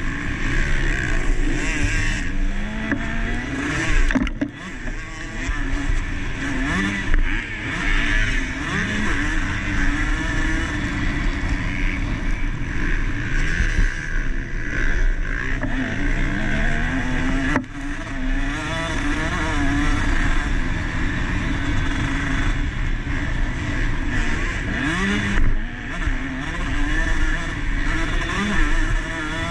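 KTM SX 150 two-stroke motocross bike engine racing, revving up and dropping off again and again as it is ridden hard, over a constant rush of noise.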